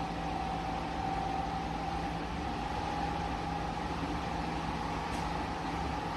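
Dreo Cruiser Pro bladeless tower fan running, a steady rush of air with a constant motor hum.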